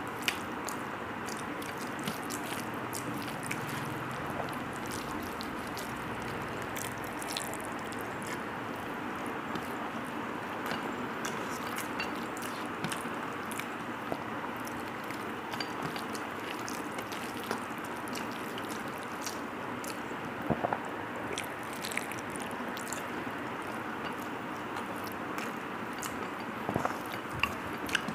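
A person eating by hand: chewing and mouth sounds, with fingers mixing rice against a steel plate. Small clicks are scattered over a steady background hiss, with a few sharper ones about twenty seconds in and near the end.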